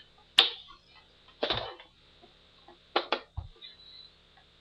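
Plastic clicks and a short rattle from handling and prying at the ammo box of a Nerf Vulcan EBF-25 blaster: a sharp click, a brief rattle about a second and a half in, then two quick clicks and a thump around three seconds in.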